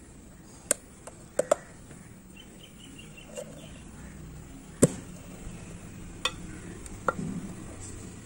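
Round metal watch tin being handled and its lid taken off: a handful of sharp clicks and knocks of fingers and the lid against the tin, the loudest just under five seconds in.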